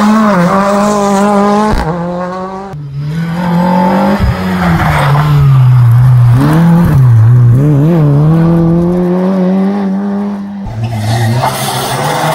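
Rally car engines revving hard through corners, the pitch rising and dropping with throttle and gear changes, in several short clips that cut sharply from one car to the next.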